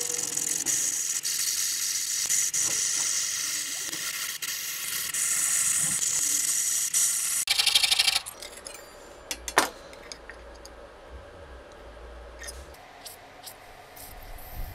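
Jeweller's saw (piercing saw) cutting a thin metal strip on a wooden bench pin: a continuous, loud, high-pitched rasping of the fine blade. About eight seconds in it stops suddenly, giving way to the much quieter hiss of a gas torch flame with a few sharp clicks.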